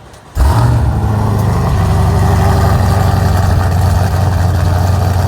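Jeep Grand Cherokee's V8 engine coming in suddenly about half a second in with a brief rise in pitch, then settling to a steady low idle.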